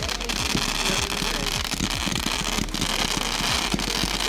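Fireworks display going off: a dense, continuous crackling and popping, with a sharper bang about two-thirds of the way in.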